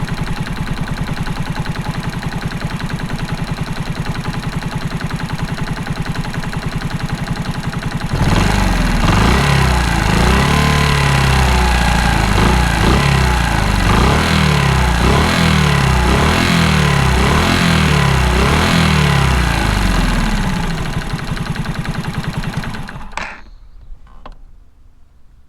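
Honda Super Cub's air-cooled four-stroke single-cylinder engine, bored up to 88cc, idling, then blipped up and back down repeatedly, about once a second, before it is switched off and runs down near the end. The engine carries an abnormal metallic knock that the owner suspects may be piston slap.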